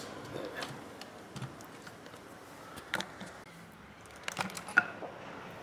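Scattered small clicks and taps from hands handling a graphics card's plastic and metal parts as its fan cables are plugged in and the card is turned over. There is a sharper click about three seconds in, and a quick cluster of clicks near the end, the loudest of them about a second before the end.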